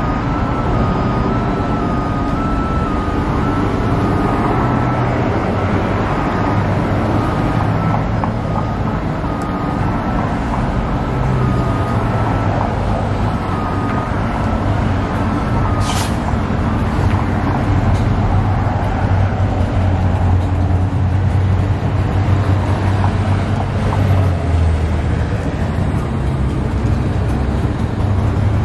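Street traffic: cars passing and a city bus running at the curb, with a steady low engine rumble. A single sharp click comes about halfway through.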